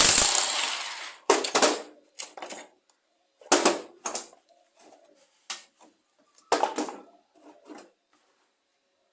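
Metallic clicks and knocks of a socket wrench and loose engine parts being handled while a lawn mower engine's fuel tank is unbolted, about ten scattered strikes. A loud rushing noise fades out over the first second.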